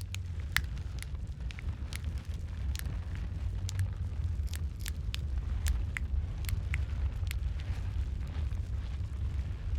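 Wood fire burning in a fireplace: a steady low rumble of flames with frequent sharp, irregular crackles and pops of burning logs.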